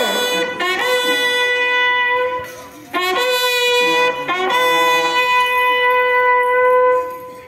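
Brass bugle sounding a ceremonial call at the flag hoisting: three long, steady held notes on the same pitch, each entered from a short lower note, with brief breaks between them.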